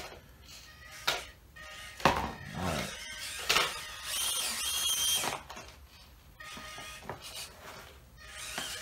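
Mini RC crawler's small electric motor and drivetrain whining in short bursts, with sharp knocks and clatter as the little truck works over the rocks; the longest whine comes about four seconds in.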